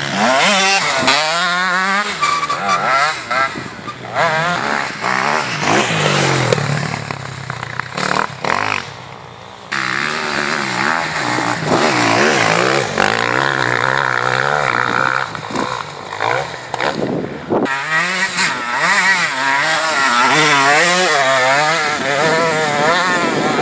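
Motocross dirt-bike engines revving, their pitch rising and falling again and again as the riders work the throttle, several bikes in turn. The engines drop quieter around eight to ten seconds in, then are loud again.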